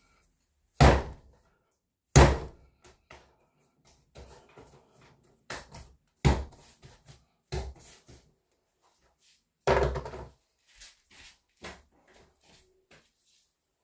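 Sourdough bread dough being kneaded by hand and slapped down onto the work surface. It gives a series of irregular sharp thuds, the two loudest about one and two seconds in, with softer handling knocks between them.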